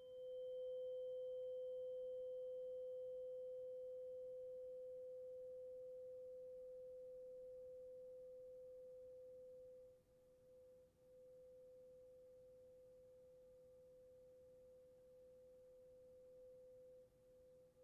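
A 512 Hz tuning fork ringing with a steady, pure tone, struck again right at the start; a faint high overtone fades within a few seconds, and from about ten seconds in the tone drops in level and wavers as it dies away.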